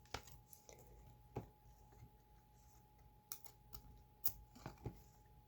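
Trading cards being handled and flipped through: faint, irregular sharp clicks and snaps, a dozen or so, spaced unevenly.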